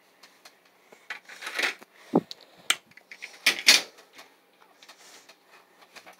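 Irregular clicks, knocks and rustling of objects being handled and moved about. A dull thump comes about two seconds in, and the loudest clatter comes a little past halfway.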